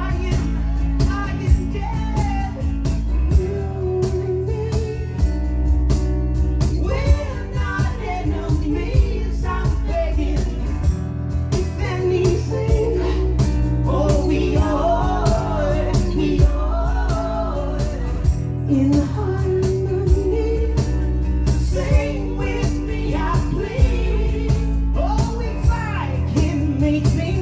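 Live acoustic rock band playing: strummed acoustic guitars and a steady beat under a high-pitched lead vocal.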